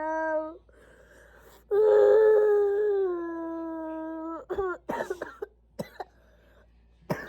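A young girl crying hard: two long drawn-out wails, the second and louder one falling slightly in pitch, followed by short catching sobs and gasping breaths.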